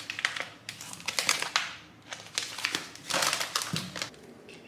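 Plastic food packaging crinkling and crackling as it is handled, in two bouts, then going quiet near the end.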